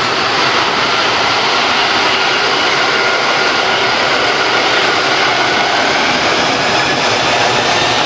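Jet airliner's engines running loud and close as it passes: a steady rush of noise with a faint whine that slowly falls in pitch.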